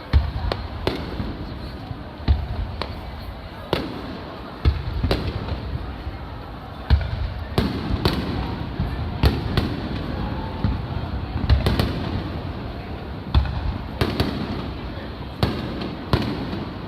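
Firework shells bursting in a fireworks display: sharp booms about once a second at uneven intervals, over the murmur of the watching crowd.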